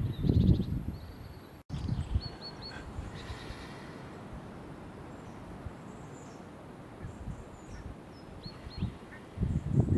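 Outdoor ambience with small birds calling in short high chirps, three in quick succession about two seconds in and two more near the end. A low rumble of wind on the microphone comes at the start and again near the end.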